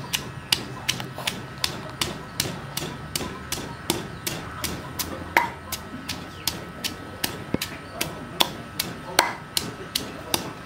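Wooden pestle pounding garlic, chilli and chopped herbs in a stone mortar, a steady rhythm of dull strikes about three a second, with two harder strikes about five and nine seconds in.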